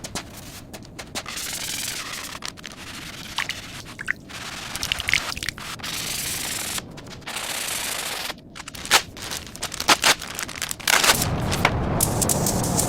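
Workshop restoration noises in short, abruptly cut pieces: scraping and sanding with rapid rattling clicks. About eleven seconds in, a louder, fuller noise with a deep rumble starts.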